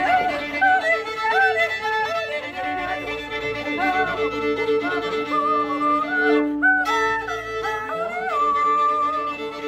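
Solo violin playing a tune over two steady held lower notes, like a drone on the open strings, the melody pausing briefly past the middle.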